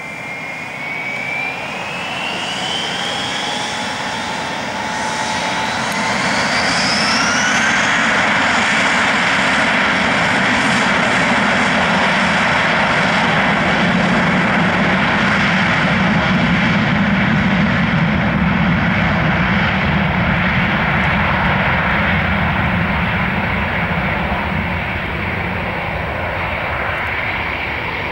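Airbus A321-231's two IAE V2500 turbofan engines spooling up, with rising whines over the first several seconds, then the loud steady jet roar of the take-off roll, which fades gradually over the last several seconds as the aircraft moves away.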